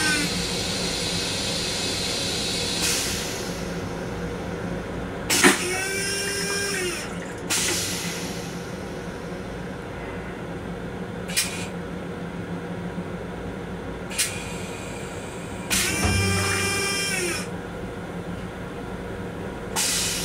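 M7 railcar restroom toilet finishing a flush: a motor whine and rushing water cut off right at the start as the bowl empties. The flush system keeps cycling with a few short whines about five and sixteen seconds in, sharp clicks and brief bursts of hiss, all over a steady low hum.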